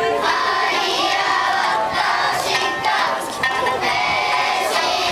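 Okinawan eisa dance music with singing, with the paranku hand drums struck in time to it.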